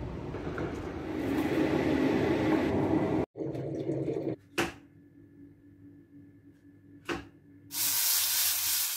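Low, steady city street rumble, cut off abruptly. Then quiet kitchen sounds with two sharp clicks, and near the end a loud sizzle of sliced mushrooms frying in a non-stick pan.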